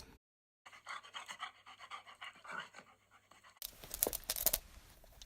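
Dog panting, quietly at first with a steady low hum under it, then louder with a few sharp clicks or knocks from about three and a half seconds in.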